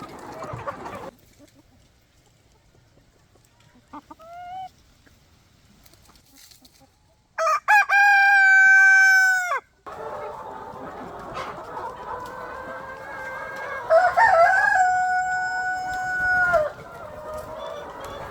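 A rooster crowing twice: one loud, long crow about seven seconds in and another near the end. Chickens cluck in the background through the second half.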